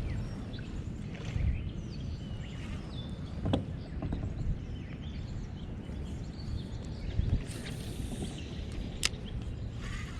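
Steady low rumble of wind and water on the microphone from a kayak drifting on a river, with scattered short high chirps and two sharp clicks, one a few seconds in and one near the end.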